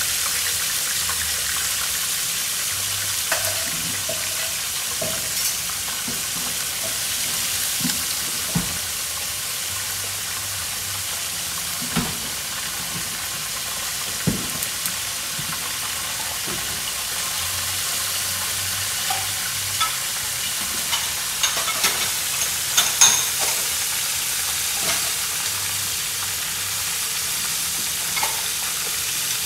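Starch-coated crab pieces frying in hot oil in a nonstick pan: a steady sizzle. Scattered sharp taps and clicks break in now and then, with a cluster of them a little past twenty seconds in.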